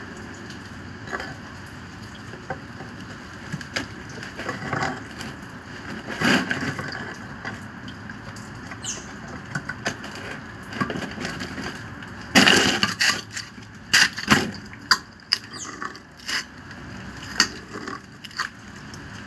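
Metal adjustable wrench gripping and turning a threaded pipe fitting on a peripheral water pump's inlet. Irregular clicks, scrapes and knocks, with a dense clatter about twelve seconds in and a few sharp knocks just after.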